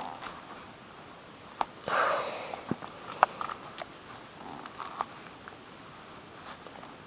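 Rubber-gloved fingers tearing and pulling the thick rind off a pummelo, with a short rustling tear about two seconds in and scattered sharp clicks.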